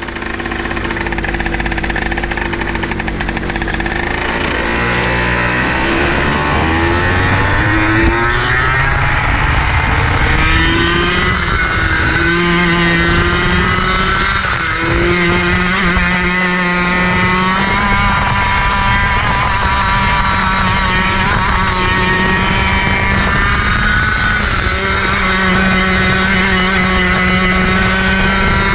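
IAME KA100 100cc two-stroke kart engine heard from the driver's seat on track: it starts low, revs up over the first several seconds, then its pitch repeatedly climbs and drops as the kart accelerates and slows.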